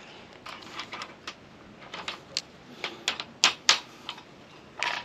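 Irregular light metallic clicks and ticks as a Sta-Lok former cone is pushed over the core strands of a stainless wire rope, catching on a burr on the strand ends. A couple of sharper clicks come a little past the middle.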